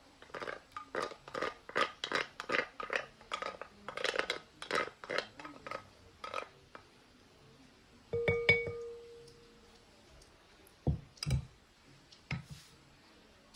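Wooden spoon scraping yogurt out of a ceramic bowl into a glass mixing bowl in quick repeated strokes. About eight seconds in comes one sharp clink of dishes with a short ring, and near the end a few dull knocks.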